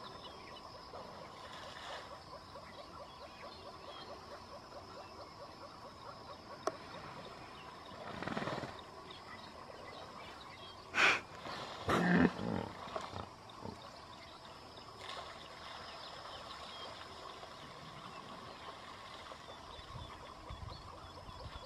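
A hippo's loud, sudden fart about halfway through: one short burst, then a deeper, longer burst a second later, trailing off in a few smaller ones.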